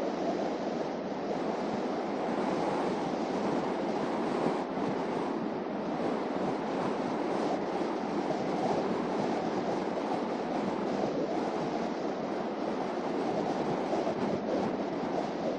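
Steady rushing road and tyre noise of a car driving at a constant speed.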